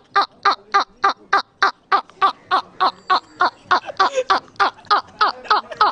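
A man laughing hard: an even, unbroken run of short 'ha' bursts, about three to four a second, each dropping in pitch.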